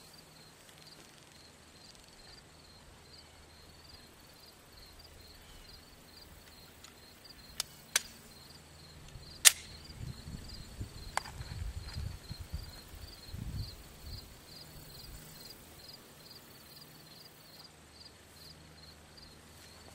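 Four sharp clicks, the loudest a little before halfway, followed by a few seconds of low rumbling handling noise. A faint high ticking repeats about twice a second throughout.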